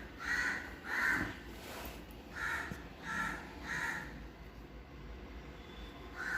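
Repeated harsh bird calls: two calls in the first second or so, then three more in quick succession about two and a half to four seconds in.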